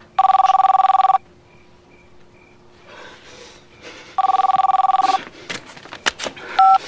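Telephone bell ringing twice, each ring about a second long with a rapid trill, about three seconds apart. Near the end come a few sharp clicks as the handset is picked up.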